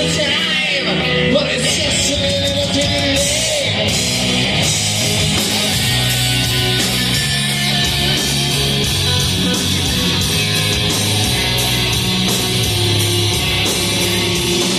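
Live hard rock band playing loudly through a PA: electric guitar over bass and drums, with a bending, wavering guitar line about a second in.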